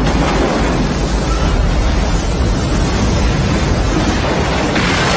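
Disaster-film sound effect of a giant ocean wave: a loud, continuous rushing roar over a deep rumble, turning brighter and hissier near the end.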